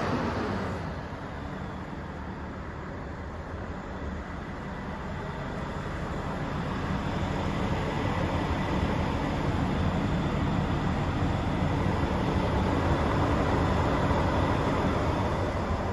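Volvo FH 500's 13-litre straight-six diesel idling, heard from inside the cab: a steady low rumble that grows a little louder over the second half.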